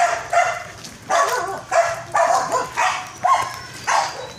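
A dog barking repeatedly, about eight short barks at roughly two a second.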